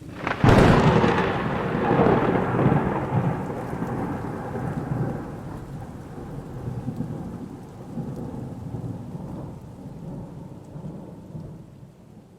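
A thunderclap: a sudden sharp crack about half a second in, followed by a long rolling rumble that slowly dies away.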